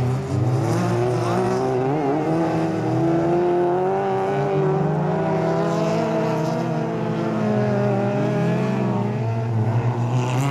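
Several racing car engines running at once as the cars lap a dirt track, their notes rising and falling as they accelerate and lift through the corners.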